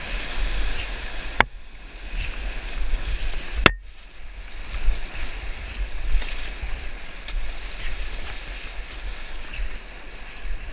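Whitewater rapids rushing around an inflatable raft, with paddles splashing through the water and wind buffeting the microphone. Two sharp knocks, about a second and a half in and just short of four seconds in.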